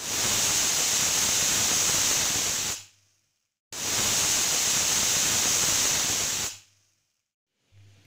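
Stovetop pressure cooker whistling twice: two loud hissing blasts of steam escaping under the weight valve, each about three seconds long, with a gap of about a second between them. Two whistles are the count the cook sets for the beans and potatoes to be done.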